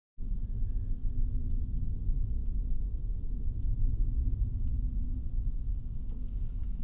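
Wind buffeting the microphone: a rough low rumble with a faint hiss above it, starting abruptly just after the start.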